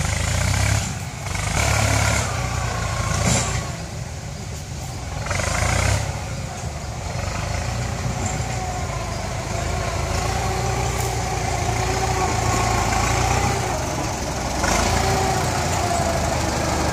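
Kubota tractor's diesel engine running as it drags a disc harrow over loose dirt, its loudness swelling and easing several times.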